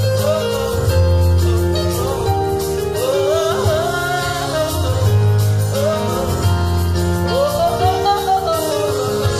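A woman singing a gospel song into a microphone over electronic keyboard accompaniment, with held chords and a bass line in phrases of a few seconds each.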